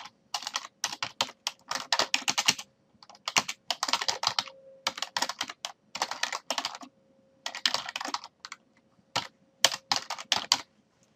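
Computer keyboard typing in quick bursts of keystrokes with short pauses between them.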